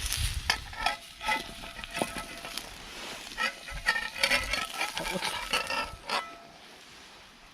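Steak sizzling over a wood campfire, with the fire crackling in many sharp, irregular pops.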